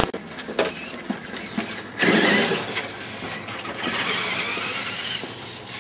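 Traxxas E-Maxx electric RC monster truck driving hard, its electric motors and geartrain whining with tyre and chassis noise, surging louder about two seconds in. The motor whine rises in pitch near the end as it speeds away.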